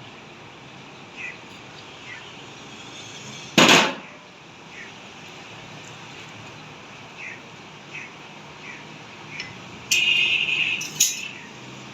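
Loud knocks in a machine shop: a single sharp knock about three and a half seconds in, then a longer rattling clatter near the end, over a steady background hiss with a few faint ticks.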